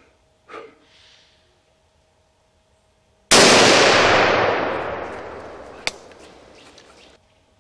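A single hunting-rifle shot, sudden and loud, its echo rolling through the forest and dying away over about four seconds before cutting off. A sharp click comes about two and a half seconds after the shot.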